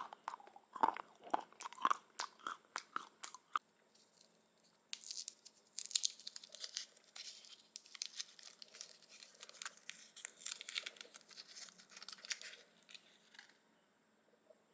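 A quick run of crisp crunches from a piece of moulded chocolate. About five seconds in, a chocolate bar's gold foil and paper wrapper crinkles for about eight seconds as it is peeled open.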